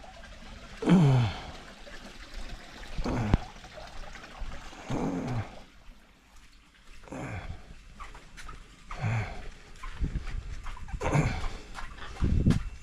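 A voice making short sounds that fall in pitch, about every two seconds, seven times.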